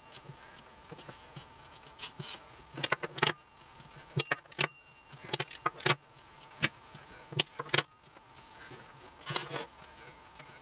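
Light clicks and taps of raw dough squares and fingers against a dark baking pan as cut pieces are set out on it one after another. The taps are irregular, about a dozen, some in quick clusters, over a faint steady hum.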